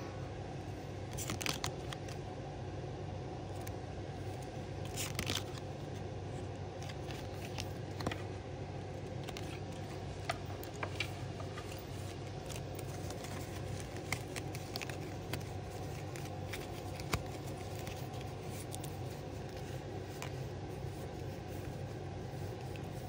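Trading card booster packs being opened and the cards handled: short tearing and crinkling sounds and scattered clicks over a steady low hum.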